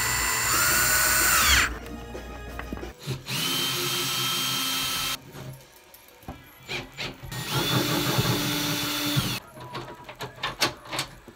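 Power drill running in three bursts, each spinning up to a steady whine and winding down, with quieter handling clicks between them.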